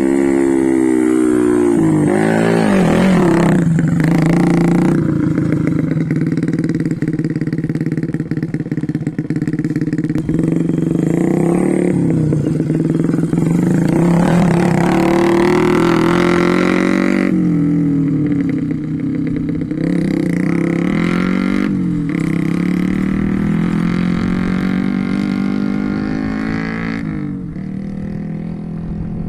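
Motorcycle engine running under way, its pitch dipping and rising again every few seconds as the throttle and revs change.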